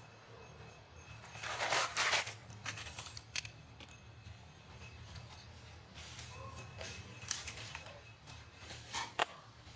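Rustling and crackling noises with scattered clicks, loudest in a burst about two seconds in, over a low steady background hum.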